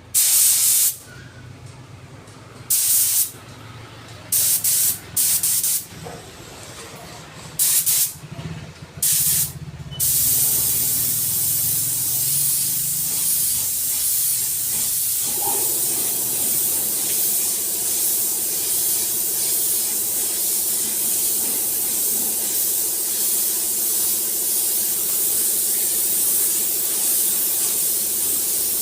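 Compressed-air spray hissing in six short bursts, then running continuously; a steady low hum comes in about halfway through.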